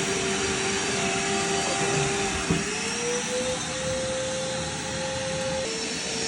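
Dexter VOD1530SWC wet/dry shop vacuum running while sucking up water: a steady motor whine over rushing air. The whine rises in pitch after a brief knock about two and a half seconds in.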